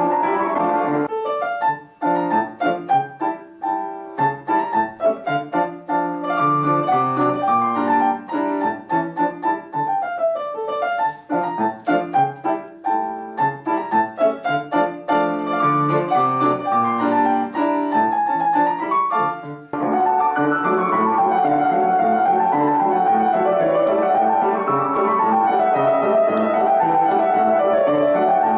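Solo piano playing a polka: short, detached melody notes over bouncing chords with brief breaks between phrases, changing about twenty seconds in to a smoother, continuous passage of running notes that rise and fall.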